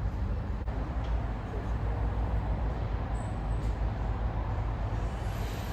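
Steady low rumble with a lighter hiss over it, even throughout.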